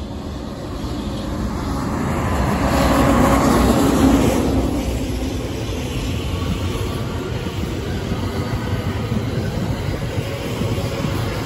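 Two electric trains passing at once: a JR West 227 series local train on the near track and a container freight train hauled by an EF210 electric locomotive behind it, wheels running on the rails. The noise swells to a peak about three to four seconds in, then settles into a steady rumble as the carriages go by.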